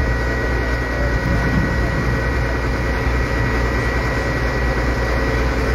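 A heavy recovery crane's engine running steadily close by: a constant low drone with a thin, steady whine above it.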